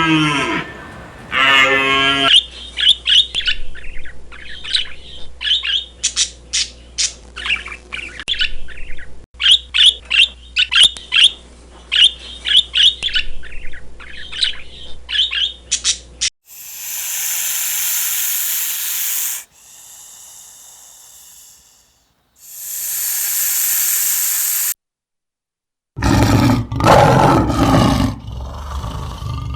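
A run of different animal sounds. The end of a cow's moo comes first, then a bird chirping in short, quickly repeated calls for about fourteen seconds. Three stretches of hissing noise follow, then a brief silence, and near the end a big cat starts roaring loudly.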